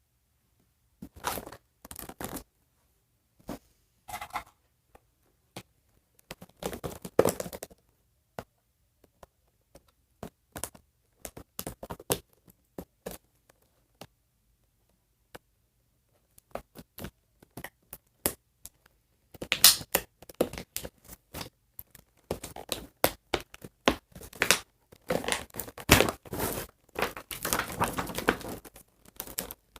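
Plastic wrap being torn and peeled off a toy box, with crinkling, tearing and small clicks and scrapes in scattered spells. It is busiest and loudest in the last third.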